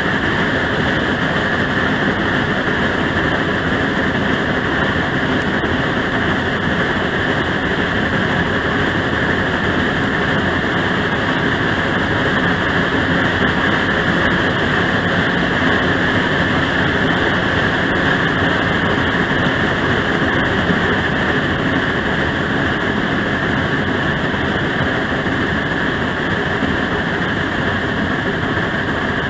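Steam train running steadily, heard from a car close behind the locomotive: a continuous loud mix of engine exhaust and wheels rolling on the rails.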